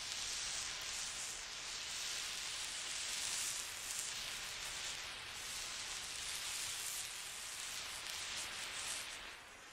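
Steady static-like hiss with no distinct launch or explosion blasts standing out.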